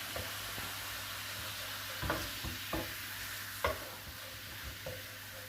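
Liquid sizzling in a hot frying pan as it is deglazed, with a utensil scraping and stirring across the pan bottom a few times to lift the browned bits left from the meat. The sizzle slowly dies down.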